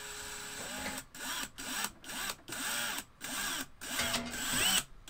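DeWalt cordless drill/driver driving a screw: the motor runs steadily for about a second, then in a series of short trigger bursts, speeding up and slowing down each time.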